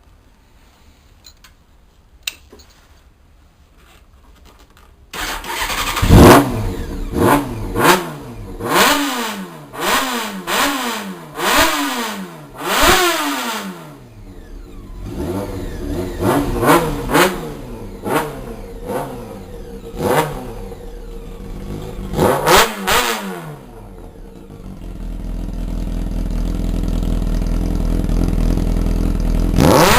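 Honda CBR 600's inline-four engine with an aftermarket Sarachú exhaust, starting about five seconds in and then revved in sharp throttle blips, roughly one a second, dropping back between them. Later the blips come less often, and near the end the engine note builds into a steadier, rising sound.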